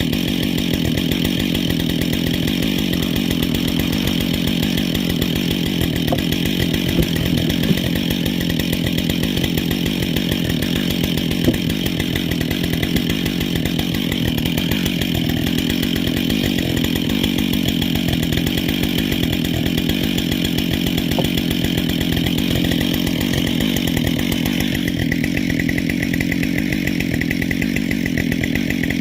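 Husqvarna 572 XP two-stroke chainsaw with a 20-inch bar and carbide-tipped chain, running steadily at speed while cutting wood. The tone shifts about 25 seconds in.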